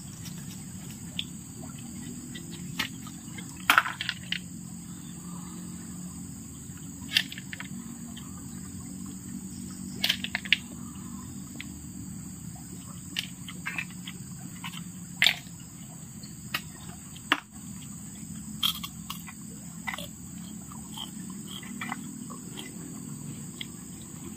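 Steady high-pitched insect drone with scattered sharp clicks and taps of people eating snail curry, about a dozen through the stretch.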